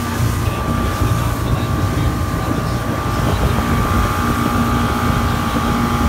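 A boat's outboard motors running steadily under way, with a steady whine over the engine drone. Wind buffets the microphone.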